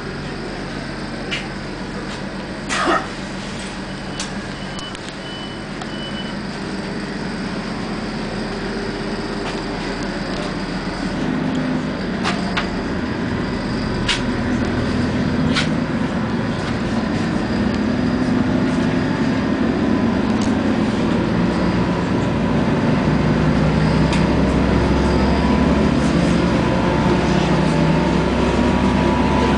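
Passenger train interior noise: the rumble of the running train grows steadily louder, with a few sharp clicks and knocks and a short run of high beeps about five seconds in.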